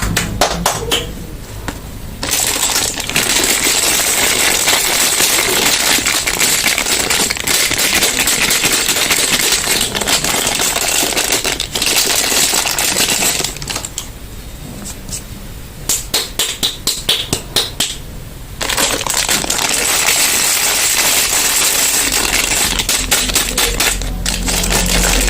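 Soap packaging being opened by hand: dense crinkling and rustling of wrappers, full of small clicks and crackles. It pauses twice, once briefly near the start and once for a few seconds about halfway, where only a few separate clicks are heard.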